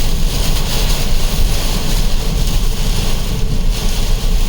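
Steady rushing noise with a heavy low rumble, typical of a car's road and wind noise heard inside the moving vehicle.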